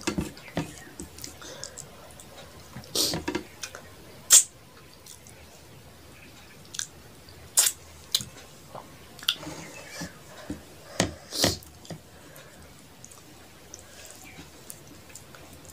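Close-up eating by hand: wet mouth smacks and chewing of rice and fish curry, with fingers squishing and mixing rice on a plate. Irregular short smacks, a few of them louder.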